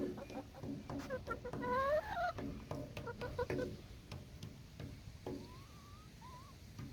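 Hens clucking and calling, with a longer, bending call about two seconds in and a thin rising call near the end.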